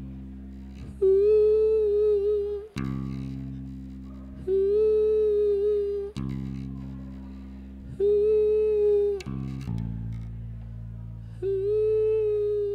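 Experimental rock music with no lyrics. Low held bass notes change every three and a half seconds or so, and a held, slightly wavering high note comes in over them four times.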